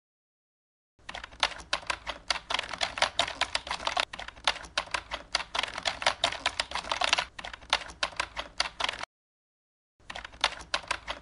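Typing sound effect: rapid, uneven key clicks that stop for about a second near the end and then start again.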